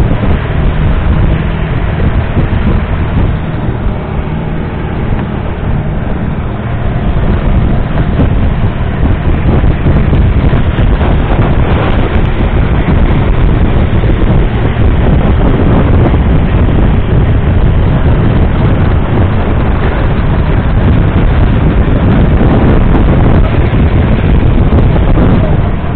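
Longtail boat's big diesel engine running steadily at cruising speed, loud, with wind buffeting the microphone. It grows a little louder about eight seconds in.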